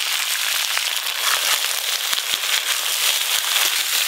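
Drumsticks, potatoes and brinjal frying in hot oil in a wok: a steady sizzle with dense crackling.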